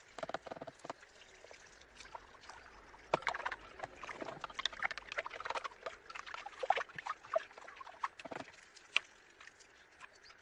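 Irregular light knocks and clinks of small metal parts being handled and set down during a mill strip-down, loudest through the middle.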